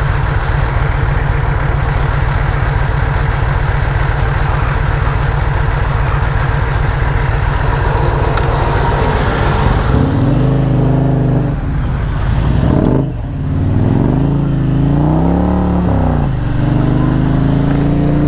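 Indian Challenger's liquid-cooled V-twin running steadily with a low, even pulse under a constant hiss. From about ten seconds in, its revs rise and fall several times, with a short break near the middle as it shifts.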